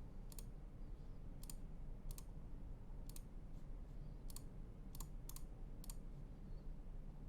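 About ten separate sharp clicks at uneven intervals, roughly one every half second to a second, from computer controls being clicked, over faint steady room noise.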